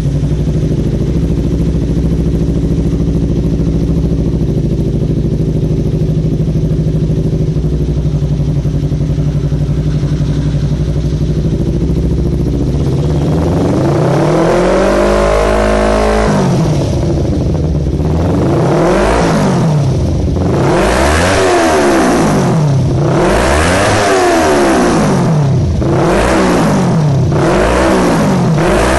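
Kawasaki Ninja 250 FI parallel-twin engine through an aftermarket slip-on racing exhaust, idling steadily. About 13 seconds in it is revved up and held high for a few seconds, then the throttle is blipped over and over, about every second and a half.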